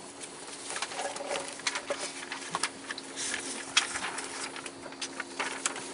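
A steady low hum under many scattered light clicks and taps.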